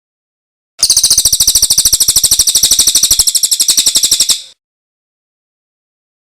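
A songbird's rapid, high-pitched trill of sharp repeated notes, about a dozen a second, lasting some three and a half seconds and cutting off abruptly.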